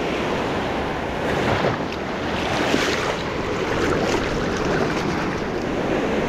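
Ocean surf breaking and washing up a sandy beach in swells, with wind rumbling on the microphone.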